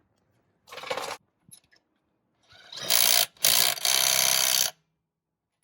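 Handheld power tool run in three short bursts, the last two the loudest and each about a second long, stopping abruptly.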